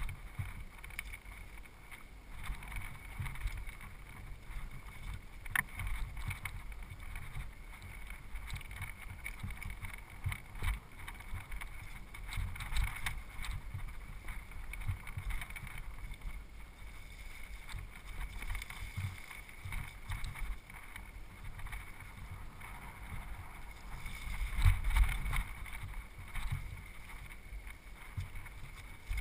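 Mountain bike jolting and rattling down rocky singletrack: steady wind rush on the microphone with irregular knocks, clatters and low thumps from the bike hitting rocks, the hardest jolts about three-quarters of the way through.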